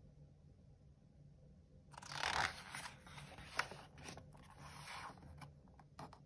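A picture book's paper page being handled and turned: a paper rustle starting about two seconds in, loudest at first, with a few sharp crinkles and clicks.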